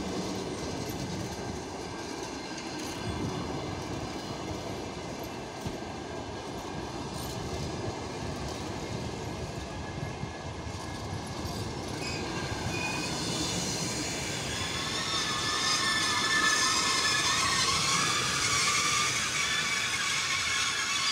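Passenger coaches rolling by on the rails with a steady rumble. About halfway through, a high, wavering wheel squeal sets in and grows louder as the train slows.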